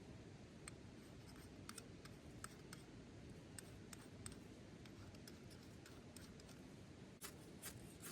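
Near silence: a faint low rumble with scattered small clicks and taps, a few sharper ones about seven seconds in.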